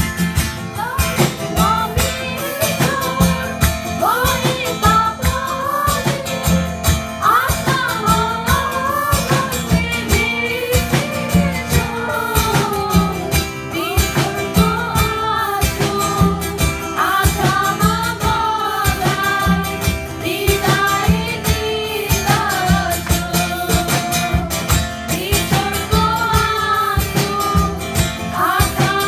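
Worship song: a voice singing the melody over strummed guitar and a steady beat.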